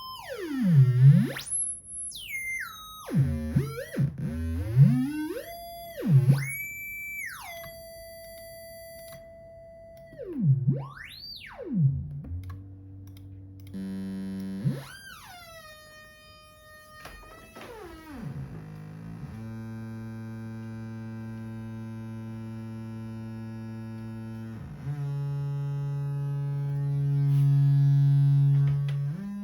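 Electronic synthesizer tones: a run of swooping pitch glides and chirps, then long steady held tones, the last of which swells louder near the end.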